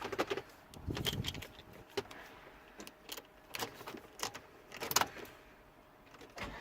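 A car key and its keyring jangling, with scattered sharp clicks and rattles as they are handled, the cheap decoration being taken off.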